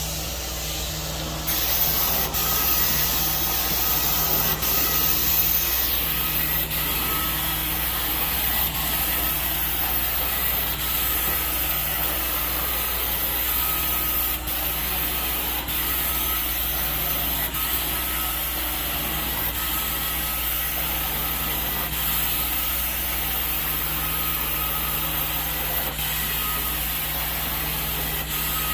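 A carpet-cleaning extraction wand spraying and sucking as it is drawn across carpet, over the steady drone of the extraction machine. The hiss gets louder about a second and a half in, and faint clicks recur every couple of seconds.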